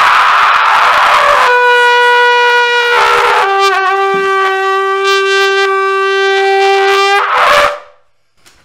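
Small curved brass horn blown loud: a second and a half of harsh, noisy blaring, then one long note that steps down to a slightly lower note about three seconds in and is held for about four seconds, ending in a short noisy blast before it dies away.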